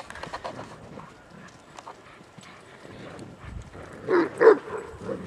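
Irish wolfhounds at play: two short, loud barks close together about four seconds in, over faint scuffling of running dogs.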